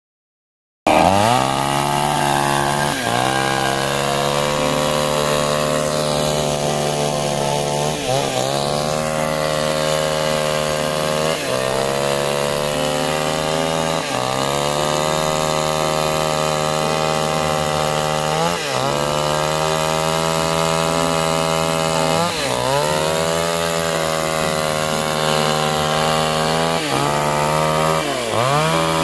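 Ogawa two-stroke chainsaw running at high revs while ripping a log lengthwise. The engine note sags briefly every few seconds as the chain bites under load, then picks back up. The sound cuts in abruptly about a second in.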